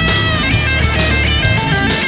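Rock music with a lead electric guitar playing a melody over bass and drums.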